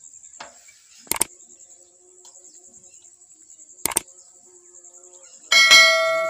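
Crickets chirping steadily, with two sharp mouse-click sound effects and then a loud bell-like chime near the end that rings and fades over about a second, the sound of a YouTube subscribe-and-bell animation.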